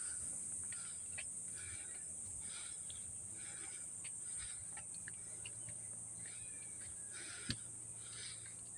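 A steady high-pitched insect drone from crickets in the undergrowth, with soft footsteps on concrete steps coming about twice a second and a single sharp click near the end.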